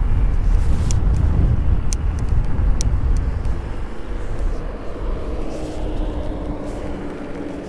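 Riding an e-mountain bike: wind buffeting the camera microphone and tyres rolling over a track give a steady low rumble, with a few sharp rattles in the first three seconds. A faint steady hum comes in about halfway through.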